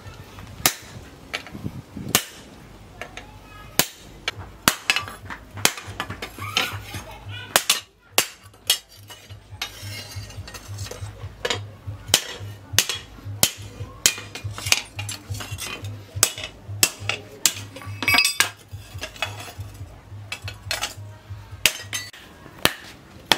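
Hand hammer striking a steel knife blade, cut from a tractor plough disc, on an anvil: irregular sharp ringing metal blows, roughly one or two a second, with a low hum through the middle.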